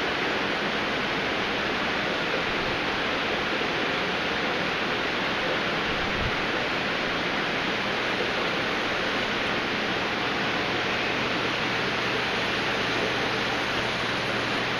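Steady rushing water from aquarium filtration, with a faint low hum underneath.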